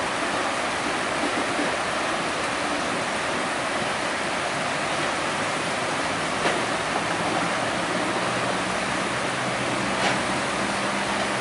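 Covered hopper cars' wheels rolling slowly through flood water over the track, churning and splashing water in a steady rush, with two brief sharp clicks.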